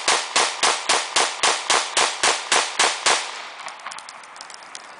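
Caracal F 9mm pistol fired in rapid succession, about a dozen sharp shots roughly a quarter-second apart, the string ending about three seconds in. A few faint clicks follow.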